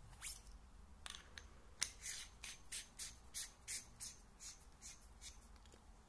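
The aluminium tail cap of a Sofirn C8F flashlight is being screwed onto the body. The threads make a run of short scraping rasps, about three a second, with a couple of handling clicks before them.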